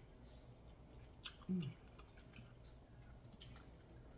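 Faint chewing and mouth sounds of people eating king crab legs, with a few sharp clicks and a short "mm" about a second and a half in.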